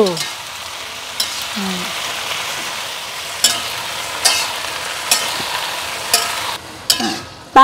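Beans stir-frying in a pan, sizzling steadily as they are stirred, with a few sharp clicks of the stirring utensil against the pan. The sizzling drops away shortly before the end.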